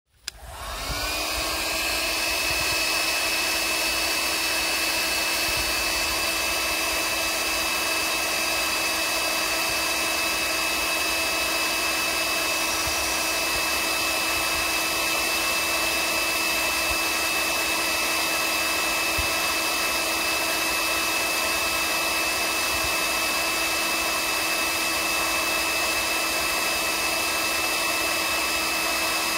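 Black & Decker heat gun switched on, its fan spinning up with a rising whine over about the first second, then blowing steadily with a steady whine and rush of air. It is heating wood pellets to ignite them.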